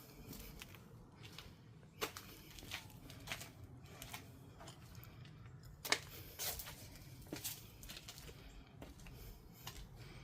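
Footsteps crunching and crackling over debris, in irregular steps, with two louder snaps about two seconds and six seconds in.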